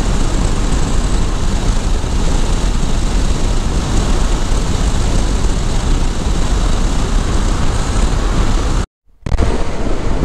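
Wind rush and motorcycle engine and road noise while riding at highway speed, about 100 km/h. It cuts out for a moment about nine seconds in, then comes back.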